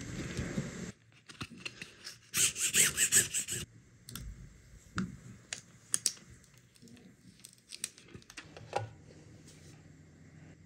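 Vinyl decal on clear transfer tape being handled and pressed onto a fabric strip, then the transfer tape peeled back: a burst of crinkling and peeling about two to three and a half seconds in, then scattered light clicks and ticks.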